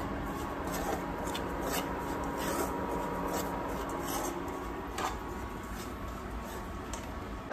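A steel spoon stirring and scraping dry-roasted grated coconut and spice powders around a nonstick pan, in irregular scratchy strokes over a steady low hum.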